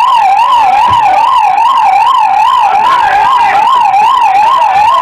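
Emergency vehicle siren in a fast yelp, one loud tone warbling up and down about three times a second.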